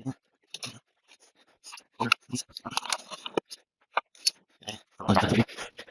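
Irregular clicks, scrapes and light clatter of motorcycle parts and hand tools being handled during reassembly, with a louder clatter about five seconds in.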